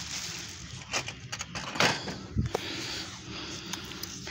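Handling noise from unpacking a stainless-steel stove: plastic wrapping rustling with scattered clicks, a sharp knock a little under two seconds in and a dull thump shortly after.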